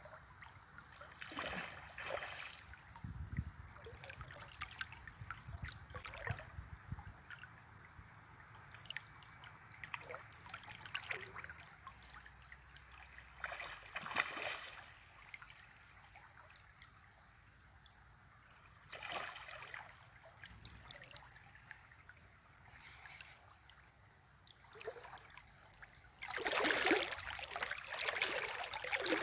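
River water flowing and trickling around a person wading in the current, with a few short louder moments. The water noise grows louder for the last three seconds.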